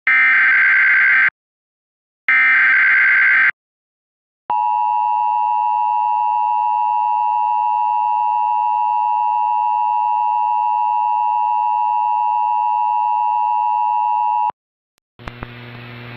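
Emergency Alert System SAME header: the last two of three identical data bursts, each about a second long. After a short gap comes the EAS attention signal, a steady two-tone alarm held for about ten seconds. A low hum starts about a second after the tone stops.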